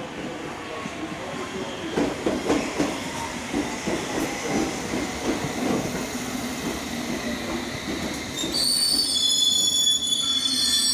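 London Underground train running through on the rails, its wheels knocking over rail joints in a quick rhythm, then high-pitched wheel squeal starting near the end and growing louder.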